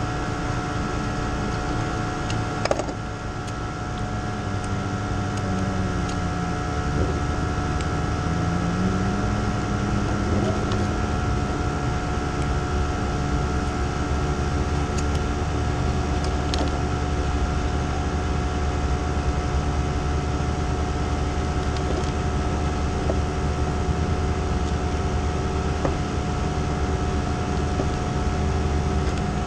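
Micro sprint's Yamaha R6 engine idling steadily. Its pitch dips and rises briefly several seconds in, and there is a single sharp click about three seconds in.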